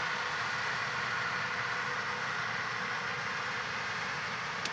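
Distant John Deere 8000R-series tractors and peanut combines running in the field: a steady, even drone with a faint hum through it.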